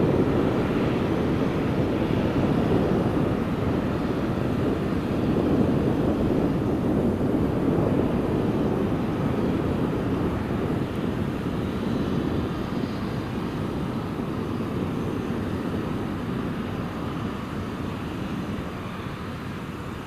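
Boeing 777-300ER's GE90 turbofan engines running: a steady rushing jet roar, strongest in the low-mid range, that gradually gets quieter over the second half.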